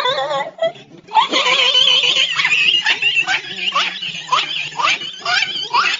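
Laughing sound effect: a person laughing in a run of short rising bursts that starts about a second in. It follows the tail of a different wavering laugh clip, which cuts off about half a second in.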